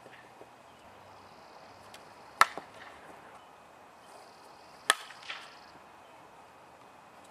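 A softball bat hitting tossed softballs in batting practice: two sharp cracks about two and a half seconds apart, each followed by fainter knocks.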